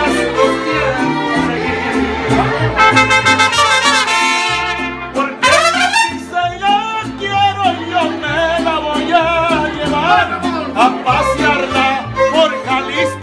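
Live mariachi ensemble playing a ranchera: violins in unison over strummed guitars, with a man's voice singing with vibrato in the second half.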